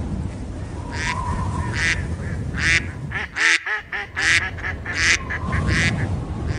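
Ducks quacking: a quick series of about ten loud quacks over a few seconds, over a low steady rumble.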